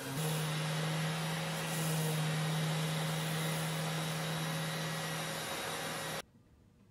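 Random orbital sander with a dust-extraction hose attached, running steadily on wood: a constant hum under an even hiss, which stops abruptly about six seconds in.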